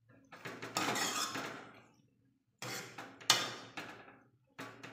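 Steel ladle stirring and scraping chopped tomatoes and peas around a metal kadhai while they fry, in three bouts with short pauses between, the sharpest clatter a little past three seconds in.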